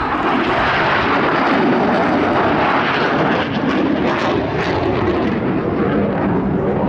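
Blue Angels F/A-18 Super Hornet jets flying past, a loud, steady jet-engine noise with a crackle about three to five seconds in.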